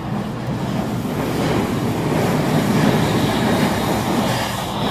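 HO scale model train, a streamlined PRR K-4 steam locomotive hauling P70 passenger cars, running along the layout track with a steady rumbling rattle of wheels on rail. It grows louder over the first couple of seconds as the train comes close and stays loud.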